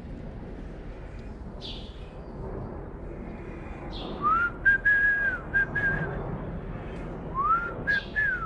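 A man whistling a tune: two short phrases of held notes, each starting with a rising glide, about halfway in and again near the end. Light clicks sound among the notes.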